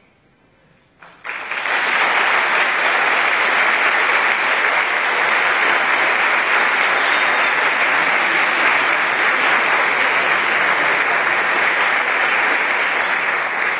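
Theatre audience applauding, starting suddenly about a second in and holding steady.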